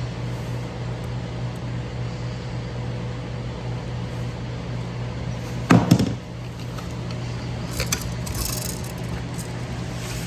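A steady low hum, with a short loud thud about six seconds in and a few light clicks and rustling around eight seconds.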